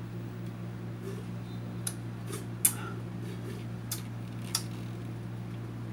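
Drinking from a plastic blender jar: a handful of short clicks and taps as the jar is tipped and lowered, the loudest about two and a half seconds in, over a steady low hum.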